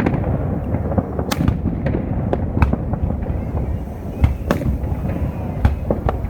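Aerial fireworks bursting in a display: sharp, irregular bangs about once a second, some in quick pairs, over a steady low rumble of echoing reports.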